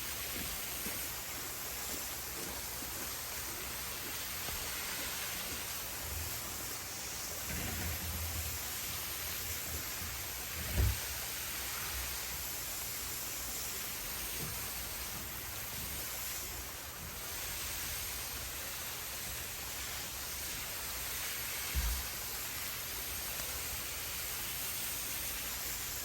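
Steady hiss of heavy rain coming down, with a couple of dull low thumps about eleven and twenty-two seconds in.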